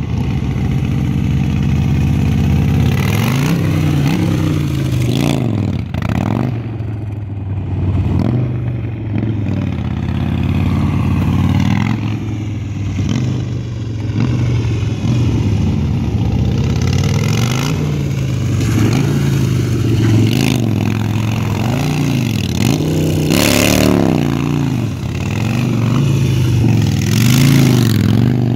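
Motorcycle engine revving up and down over and over as the bike is ridden through slow, tight turns, the pitch rising and falling every second or two.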